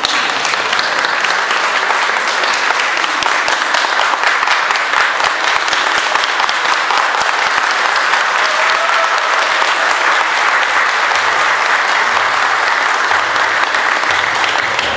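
Audience applauding: dense, steady clapping that swells at the start and keeps up throughout.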